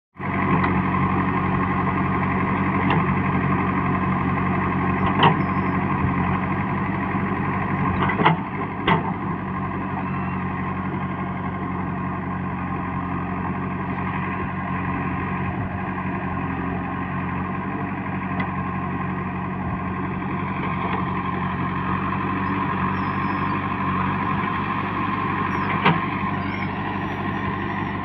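JCB 3DX backhoe loader's diesel engine running steadily while the backhoe arm digs, with a few sharp knocks, the loudest about 8 to 9 seconds in.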